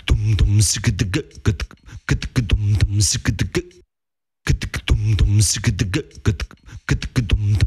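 Background music of rhythmic beatbox-style vocal percussion with voice, in short phrases that stop dead for about half a second midway.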